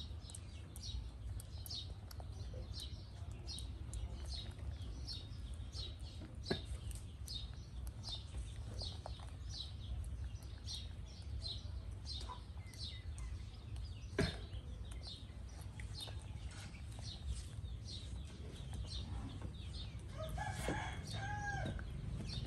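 A rooster crows once near the end, over a steady series of short high chirps repeating about twice a second. Two sharp clicks come in the middle.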